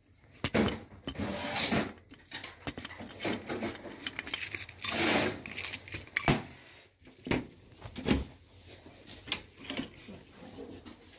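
Irregular knocks, clicks and rustling of objects being handled and shifted about on a cluttered shelf.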